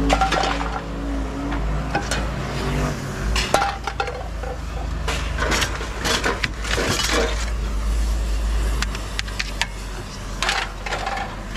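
Pieces of scrap metal clinking and clattering against each other in a run of sharp knocks, over a steady low rumble.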